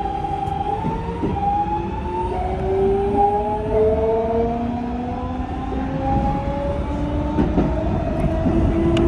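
Electric commuter train's inverter-driven traction motors whining as the train accelerates, several tones rising in pitch in steps over a low running rumble.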